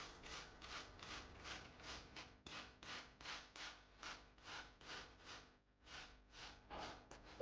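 A spray bottle misting plants: quick repeated hissing squirts, about three a second, with a couple of short pauses.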